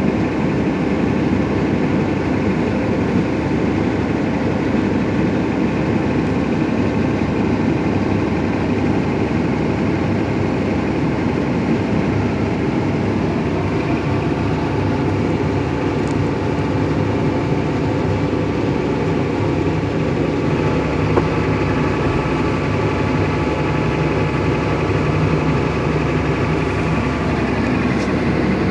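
Excavator's diesel engine running steadily, its note shifting about halfway through.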